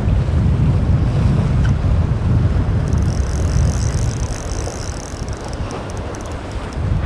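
Wind buffeting the microphone over surf washing against jetty rocks. About three seconds in, a spinning reel gives a high whir as its handle is cranked to retrieve line, which gives way to light rapid ticking near the end.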